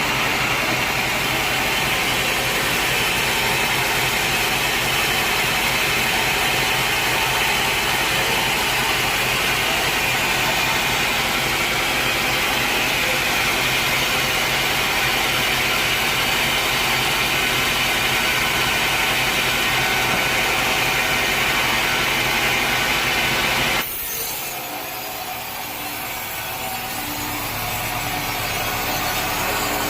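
Band sawmill cutting through a log: a loud, steady sawing that drops off suddenly about 24 seconds in as the blade leaves the cut, leaving the machine running more quietly.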